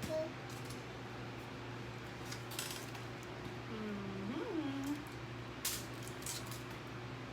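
Quiet eating sounds at a table: scattered clicks and crackles of chewing and handling fried chicken. About four seconds in there is one short wordless vocal sound that rises then falls in pitch. A steady low hum runs underneath.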